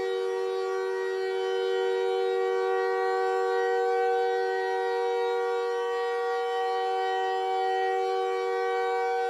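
Steady electronic drone: a held chord of several pitches that stays unchanged throughout, with no rise or fall.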